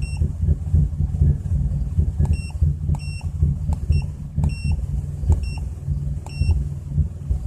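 A 2004 Chrysler Crossfire's 3.2-litre V6 idling roughly, with an uneven, pulsing rumble. Six short electronic beeps come from about two seconds in to near the end.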